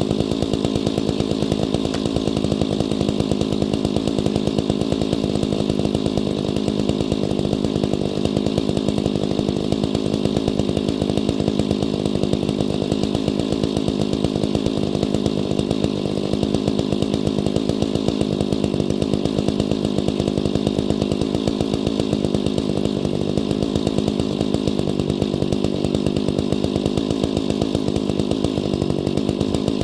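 Stihl 031AV two-stroke chainsaw engine running steadily at an even speed, with no change in pitch or loudness.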